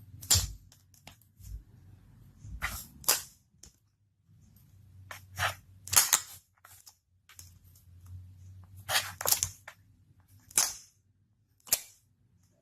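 Clear slime being pressed and squeezed, giving about nine sharp, irregularly spaced pops and clicks as air pockets burst.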